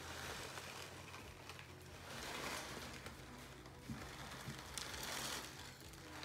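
Dry cereal pouring from a cardboard box into a bowl, a faint rattling patter that comes in several spurts as the box is tipped.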